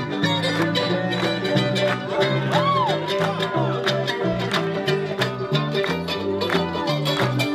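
Bluegrass-style string band music with a quick strummed beat over a bass line stepping from note to note.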